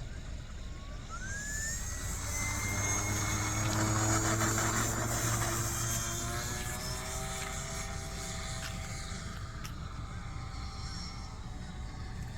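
Radio-controlled scale Cessna 182 model airplane flying past, its motor and propeller drone rising in pitch, swelling to its loudest in the middle of the pass, then falling in pitch as it moves away.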